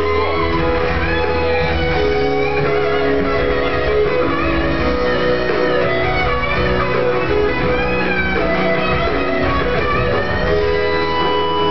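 Live rock band playing, with an electric guitar carrying bending, sliding lead lines over sustained chords and bass.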